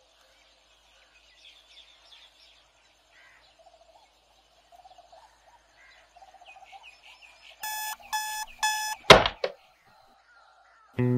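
Faint bird chirping, then a digital alarm clock beeps three times and is cut off by a loud thud as a fist slams down on it, followed by a smaller knock.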